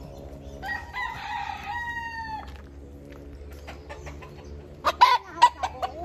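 Native rooster crowing once, one long call of about two seconds, followed about five seconds in by a quick run of short, loud clucks.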